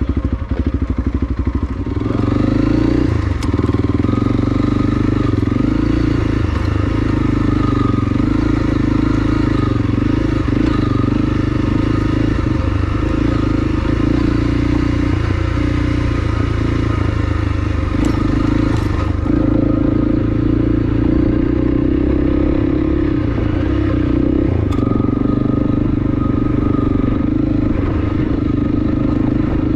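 Honda CRF300L Rally's single-cylinder engine running steadily as the bike is ridden along a dirt road, its note shifting slightly a few times with the throttle.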